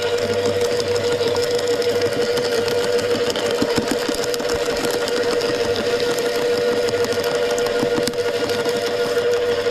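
Wood chipper running steadily with a constant hum while branches crackle and splinter as they are shredded.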